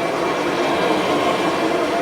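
Kirby Sentria upright vacuum cleaner running, its motor giving a loud, steady, unbroken noise.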